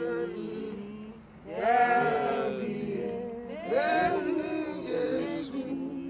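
A group of voices singing unaccompanied in long held phrases, pausing briefly about a second in.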